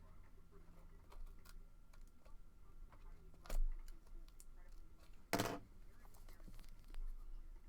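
Trading cards and their packaging being handled: scattered light clicks and taps, one sharp click about three and a half seconds in, and a brief louder scrape or rustle a little after five seconds.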